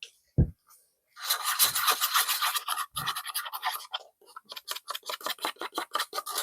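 A single thump, then a stir stick scraping quickly round a cup of epoxy resin, settling into a fast back-and-forth rhythm of about four strokes a second.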